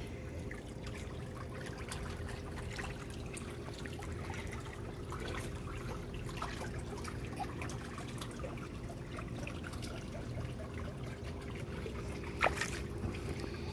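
Swimming pool water trickling and lapping over a steady low hum, with scattered small ticks and one sharper click near the end.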